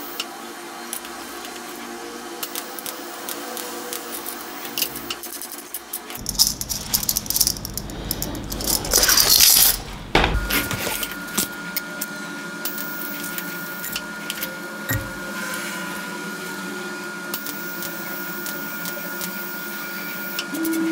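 Small thin stainless-steel parts clinking and rattling as they are handled over a steel welding table, with scattered light clicks over a steady hum. A loud burst of hissing comes just before the middle.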